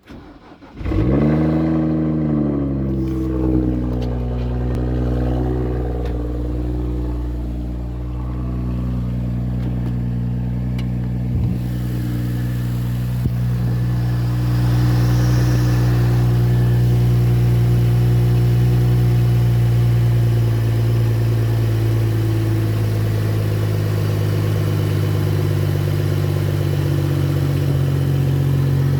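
BMW N55 3.0-litre turbocharged straight-six starting from cold: it catches about a second in, revs flare up and drop back, then it settles into a steady fast idle. This is the cold-start rattle the owner is showing.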